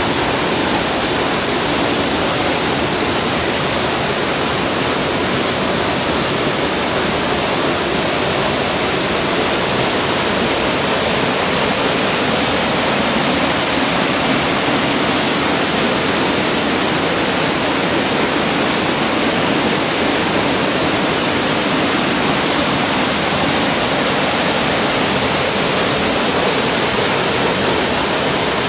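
Small waterfall pouring into a rocky plunge pool: a steady, unbroken rush of falling and churning water.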